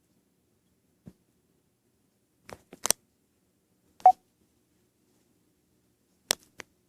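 A few scattered sharp clicks against near silence: a faint one about a second in, a quick group of three near the middle, a louder click with a short beep-like tone about four seconds in, and two more near the end.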